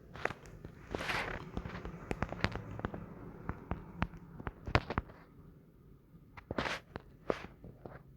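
Handling noise: irregular sharp clicks and taps with a few short rustles.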